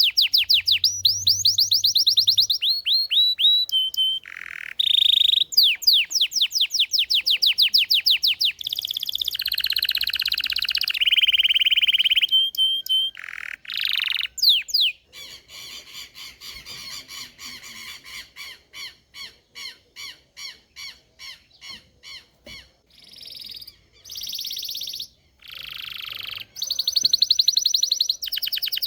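Belgian canary singing a long, varied song of rapid trills and rolls. In the middle it drops to a quieter run of evenly spaced notes, about two or three a second, then returns to loud fast trills near the end.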